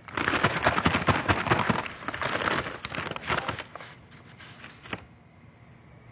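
Brown paper bag crinkling and rustling as it is handled with flour and chicken pieces inside, a dense crackle that is loudest in the first two seconds, then tapers off and stops about five seconds in.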